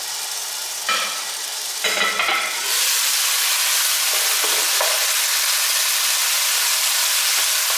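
Chicken strips and onion sizzling in a nonstick wok, muffled under a glass lid at first; a couple of clinks sound about one and two seconds in as the lid is lifted, and the sizzle then turns loud and bright while a spatula stirs the food.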